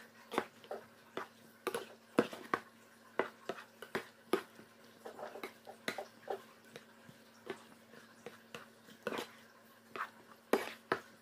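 Slotted spatula knocking and scraping against a nonstick frying pan while tossing chicken and vegetables, making irregular sharp clicks about twice a second.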